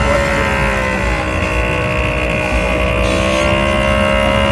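Small step-through moped engine running steadily as the moped rolls slowly past close by.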